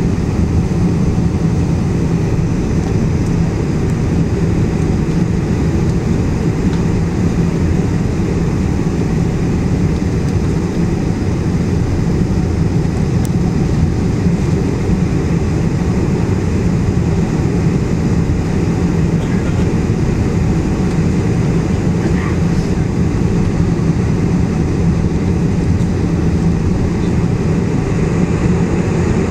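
Steady, loud cabin rumble of a Boeing 747-400 in flight: engine and airflow noise heard from inside the airliner, deep and unchanging.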